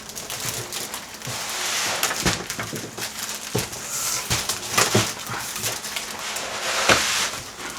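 A PC case being worked out of its cardboard shipping box and packing: rustling and scraping of cardboard and packing material, with scattered knocks and bumps, the sharpest near the end.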